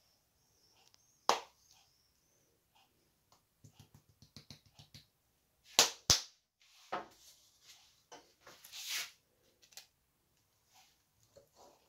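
A spice jar of ground nutmeg being handled over a pot: a few sharp clicks, the loudest two close together about six seconds in, with a run of light rapid taps before them as the jar is shaken. There is a brief rustle near the end.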